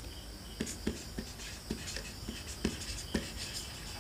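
Marker pen writing on a whiteboard: a string of short, irregular strokes and light taps as a word is written out.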